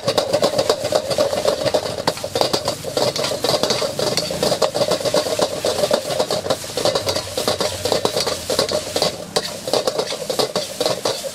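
Fried rice being stir-fried in a wok: a metal spatula scraping and clanging against the wok many times a second, over a steady sizzle.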